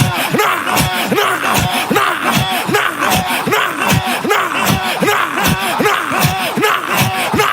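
Intense shouted prayer over a fast, driving drum beat: deep thuds falling in pitch, about three a second, with sharp high percussion hits on top.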